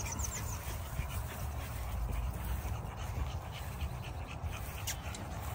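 A bully puppy panting and snuffling as it plays in the grass, over a steady low rumble, with a few faint high chirps near the start.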